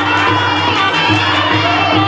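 Traditional Khmer ring-fight music playing during the bout: a wavering wind melody over a steady low drum beat of about two strokes a second.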